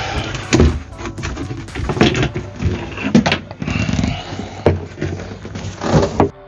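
Irregular knocking, clicking and rattling of hands working on a Truma gas boiler's cover, with a handful of sharper knocks spread through it; it stops shortly before the end.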